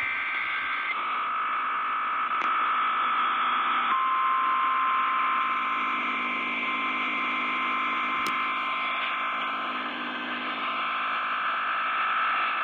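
Emergency Alert System two-tone attention signal received over AM radio: a steady buzzing tone under hiss and static.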